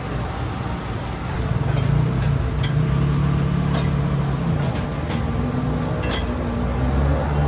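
Motor vehicle engine running close by, its pitch rising and falling as it moves, with a few light clicks in between.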